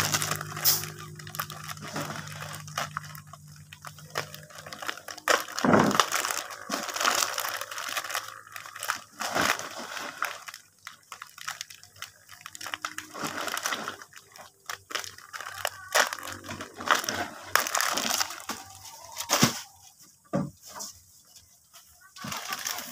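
Plastic bags and instant-noodle packets rustling and crinkling as they are handled and packed. Irregular, with many short sharp crackles and clicks.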